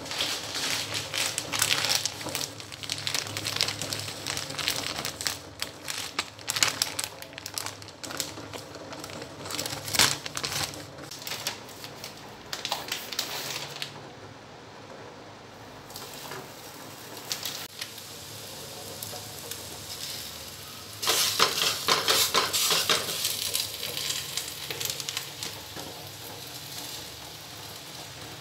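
Kitchen work: dishes, pots and utensils clattering and clinking at irregular intervals, with a louder stretch of hissing about three-quarters of the way through.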